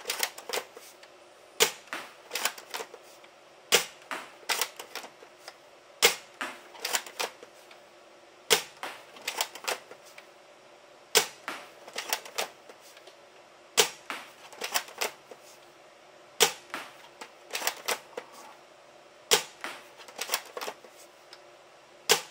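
Gang Jiang M24 bolt-action gel blaster firing blue gel balls, about nine sharp shots roughly every two and a half seconds. Between the shots come lighter clicks and clacks as the bolt is worked to chamber the next gel.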